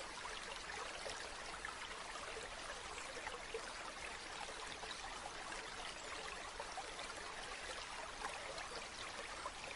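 Steady sound of running water, an even rush with fine trickling.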